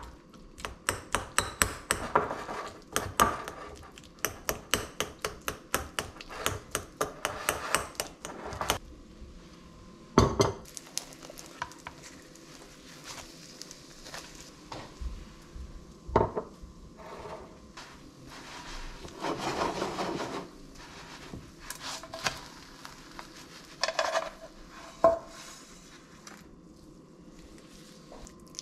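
A metal fork clicks rapidly and repeatedly against a ceramic bowl for about eight seconds, crumbling feta cheese. Then come scattered single knocks and a scrape of metal tongs on a frying pan as the tortilla is handled.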